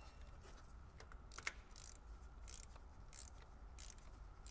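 Faint ratcheting of a hand torque wrench being swung back and forth on bolts: a short raspy burst of clicks about every two-thirds of a second.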